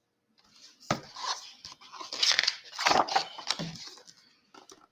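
Page of a hardcover picture book being turned and the book handled: paper rustling and sliding, with a sharp tap about a second in.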